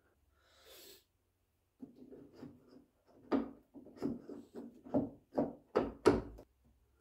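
Exterior door handle on a BMW E46 door being worked by hand: a series of sharp clacks of the handle and latch linkage, roughly two a second and loudest near the end, as the newly fitted door lock actuator is operated. A brief soft rustle comes first.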